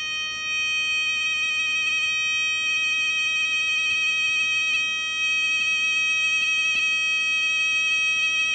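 A 555 timer oscillator circuit drives a small speaker with a steady, buzzy alarm-like tone of even pitch, powered by four D batteries in series. A few faint clicks sound over it.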